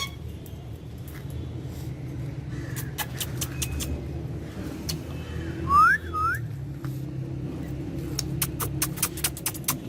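Ringneck parrot giving two quick rising whistled calls about six seconds in, over a steady low rumble with scattered sharp clicks.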